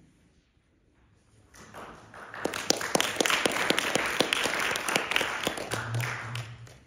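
Audience applauding, building up about a second and a half in and dying away near the end.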